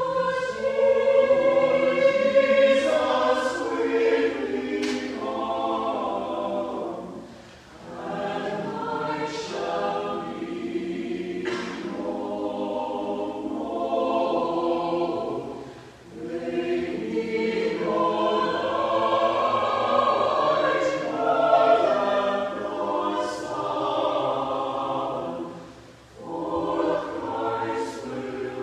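Small mixed choir of men and women singing a slow choral piece in long sustained phrases, with short breaks for breath about every eight to ten seconds.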